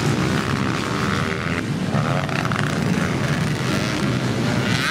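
Motocross dirt bike engines revving hard as the bikes race along the track, the pitch rising and falling with the throttle.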